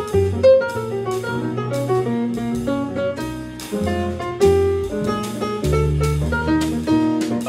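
Live jazz ensemble playing: a drum kit with regular cymbal strokes and a bass line under busy melodic lines, likely saxophone and piano.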